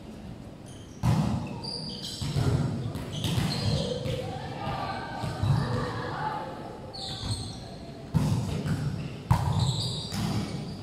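A volleyball being struck by players' hands during a rally: several sharp smacks echoing in a large sports hall, the loudest about a second in and twice near the end, with players calling out between hits.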